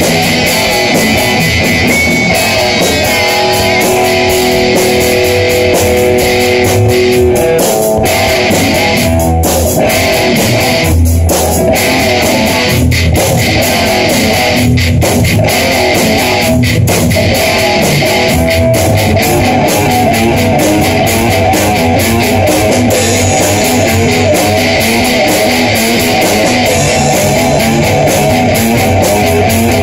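Loud live rock jam led by an electric guitar played through an amplifier, with a steady low beat underneath.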